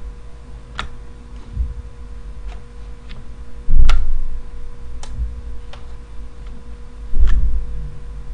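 Computer mouse clicks, a dozen or so scattered sharp clicks, with two heavier low thumps about four and seven seconds in.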